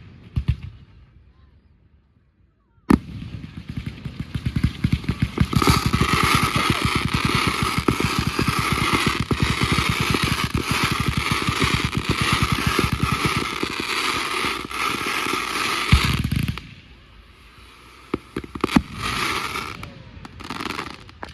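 Fireworks going off: after a sharp bang about three seconds in, a dense run of rapid crackling pops with a steady hiss lasts about thirteen seconds, then stops suddenly. A few scattered pops follow near the end.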